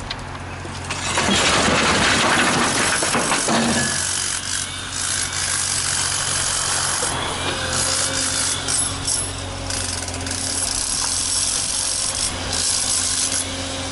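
Compact excavator loading demolition debris into a small dump truck. Its engine runs steadily throughout. From about one to four seconds in comes a loud, rough scraping clatter, and after it lighter scraping and knocks.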